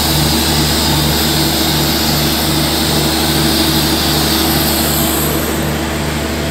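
Diesel engine of a Bangladesh Railway intercity train running alongside the platform: a loud, steady drone with a regular throb a few times a second.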